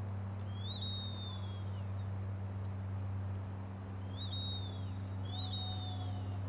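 Hand-turned wooden bird whistle blown three times, imitating a bird call: each call flicks up to a high note and then slides slowly downward, the first near the start and the other two close together near the end. A steady low hum runs underneath.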